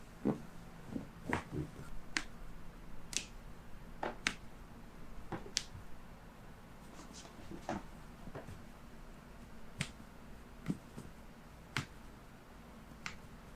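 About a dozen quiet, sharp clicks and small pops at irregular intervals, with a low steady room hum between them.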